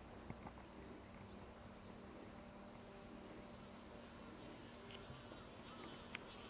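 Faint insect calling: short trains of high, rapid chirp pulses repeating about every one and a half seconds.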